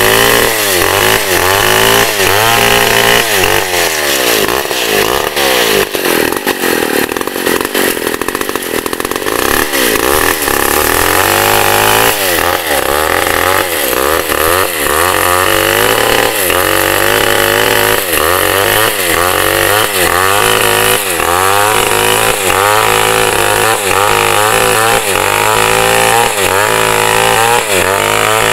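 Large two-stroke chainsaw running hard while cutting through a thick log, its engine note rising and falling over and over as the chain works in the cut.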